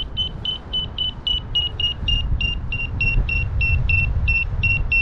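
Paragliding variometer beeping steadily, about four short high beeps a second, its climb tone signalling that the glider is gaining height. Wind rumbles on the microphone underneath.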